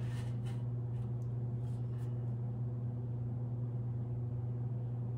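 Room tone dominated by a steady low hum, with a few faint soft ticks in the first couple of seconds.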